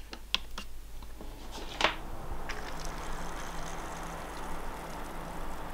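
A few light clicks, the loudest about two seconds in, then a faint steady hum with a light hiss as a bench-tested PC powers on: the AIO liquid cooler's pump and radiator fans spinning up, very quiet.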